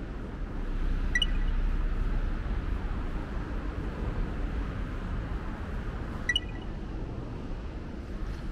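City street ambience: a steady low rumble of traffic, with two brief high-pitched pings, one about a second in and another about six seconds in.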